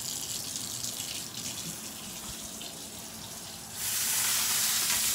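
Water running from a kitchen tap in a steady hiss, turned up suddenly louder about four seconds in.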